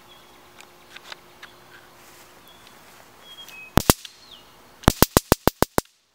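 Sabre 400,000-volt handheld stun gun fired in the air, its spark arcing across the electrodes: two sharp snaps, then about a second of rapid, evenly spaced snapping.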